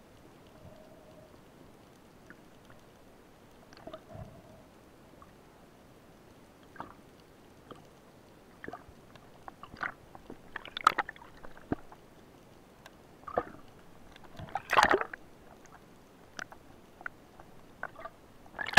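Underwater clicks and knocks from a spearfisher's gear as the speargun line and shaft are handled to haul in a speared fish, scattered through a faint underwater hiss. The loudest knocks come in clusters about eleven and fifteen seconds in.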